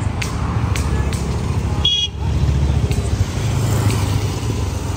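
City road traffic: engines of cars, scooters and motorcycles running in a steady low rumble, with a short high horn toot about two seconds in.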